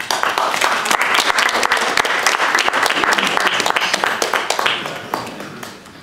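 Audience applauding: many hands clapping together, fading away about five seconds in.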